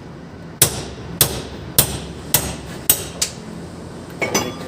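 Hammer striking metal, six sharp ringing blows about every half second, knocking out a small roller from a clutch pressure plate, followed by a brief metallic clatter near the end.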